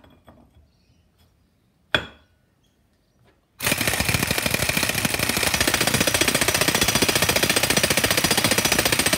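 Air impact wrench running with a rapid, steady hammering, tightening the rear output flange nut on the transfer case; it starts a little over a third of the way in. Before it, a single sharp click.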